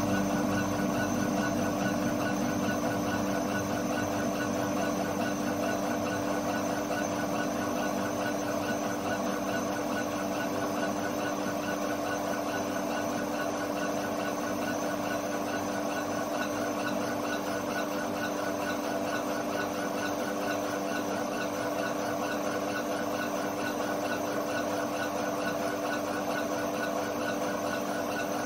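Laser engraver raster-engraving plywood: the gantry head shuttles rapidly back and forth, giving a fast, even, buzzing rattle over a steady machine hum.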